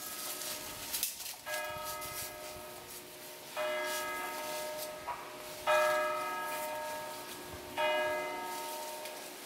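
A church bell tolling slowly: four strokes about two seconds apart, each ringing on and fading before the next.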